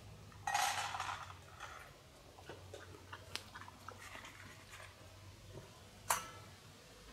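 A puppy eating from a small metal bowl: chewing and crunching, with small clinks from the bowl. A short loud rustling burst about half a second in and a sharp click just after six seconds.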